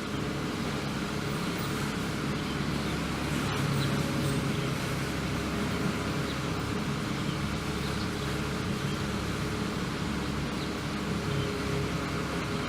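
A steady low mechanical hum, like a motor running, over an even background noise.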